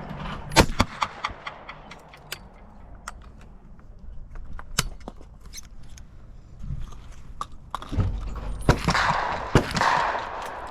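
A shotgun shot on a skeet field about half a second in, followed by scattered sharp clicks and knocks of gun handling, with a stretch of louder rustling and knocking near the end.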